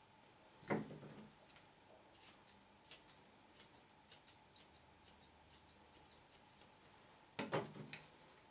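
Grooming scissors snipping a poodle's head coat: a run of quick, light snips, about four a second. A louder thump sounds about a second in and again near the end.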